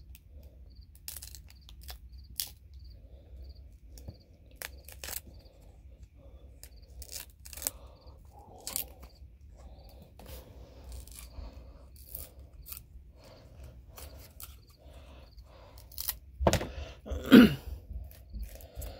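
Crackling and snapping clicks of a fresh lemongrass stalk being creased and folded by hand, its fibres tearing, to shape it into a squirrel call. Near the end a louder sound with a wavering pitch.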